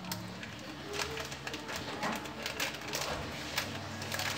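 Irregular crinkling and clicking of a small plastic seasoning packet being handled over a plastic basin.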